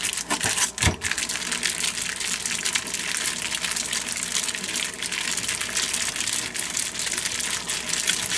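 Plastic bag of raw chicken breast in oil rustling and crinkling as it is kneaded by hand on a plastic cutting board, with two dull knocks about a second in.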